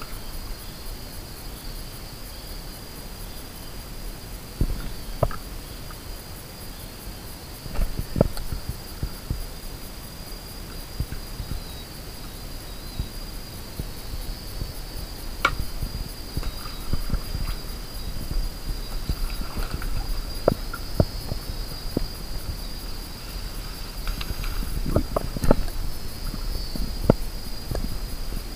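Steady high-pitched drone of insects in a mangrove, with scattered sharp knocks and clicks.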